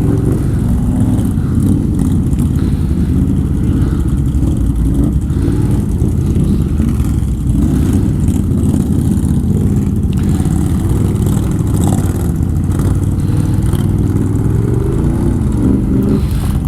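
Can-Am ATV engine running steadily under low throttle while riding.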